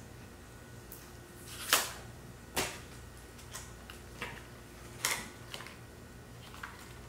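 A small box of dash cam filters being opened and handled by hand: a handful of sharp clicks and taps, the loudest about two seconds in.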